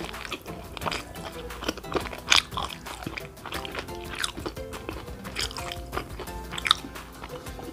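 Close-miked chewing and wet mouth sounds of a person eating spaghetti, with sharp clicks now and then, over background music.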